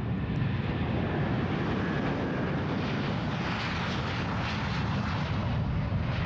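Rolls-Royce Trent 700 turbofans of an Airbus A330-300 at takeoff power as the jet lifts off and climbs past: a loud, steady jet noise whose hissing upper edge grows stronger around the middle.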